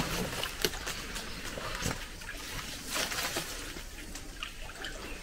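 Faint light water patter and scattered small ticks as a fishing lure is worked across still swamp water, with one sharp tick at the start.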